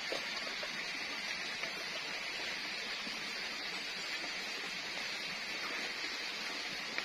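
Steady forest ambience: an even, continuous hiss with a few faint clicks.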